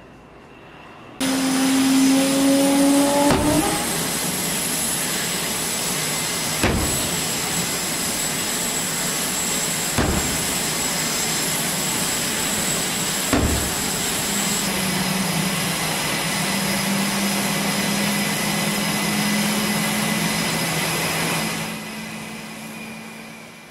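Loud jet noise from fighter jets flying past. It starts suddenly about a second in, with a whine that rises in pitch over the first few seconds. Four sharp thumps come a few seconds apart, and the noise fades near the end.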